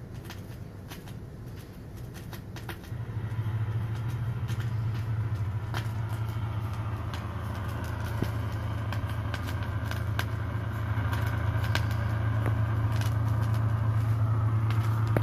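Vinyl LP playing on a turntable, the stylus riding the groove with scattered surface crackle and clicks. A steady low hum comes in about three seconds in and slowly grows louder.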